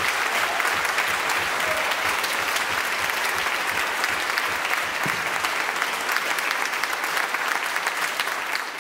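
Audience applauding steadily after a concert song, the clapping fading out at the very end.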